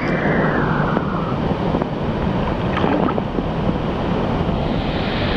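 Water sloshing around a swimmer in a cave pool, heard as a steady low rushing rumble with wind buffeting on the microphone.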